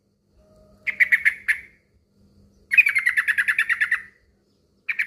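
Male yellow-vented bulbul (trucukan) singing its call to a rival: short phrases of quick, bubbling repeated notes. The longest run comes midway, and another phrase begins near the end.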